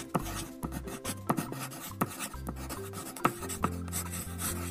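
Pencil scratching on paper over light background music with a steady bass line and short plucked notes.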